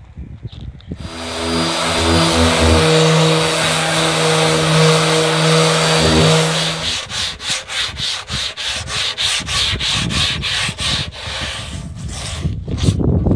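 Corded random orbital sander running against an MDF subwoofer box, a steady motor hum under a hiss of abrasive, which stops about seven seconds in. Then come quick rhythmic rubbing strokes of sanding by hand with sandpaper, about four a second.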